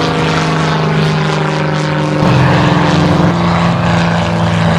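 Helio U-10A Super Courier's piston engine and propeller droning steadily in flight; a little over two seconds in, the engine tone shifts and grows slightly louder.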